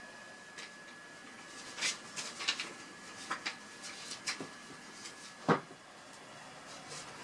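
A run of light clicks and knocks, as of objects being handled or bumped, with one sharper knock about five and a half seconds in. A faint steady high tone fades out about three and a half seconds in.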